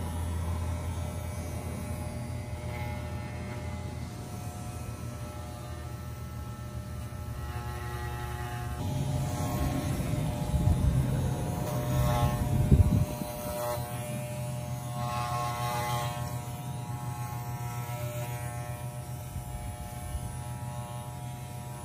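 Corded electric dog clippers buzzing steadily as they are run through a shaggy dog's coat, with louder, rougher stretches around the middle as the blade works through the fur.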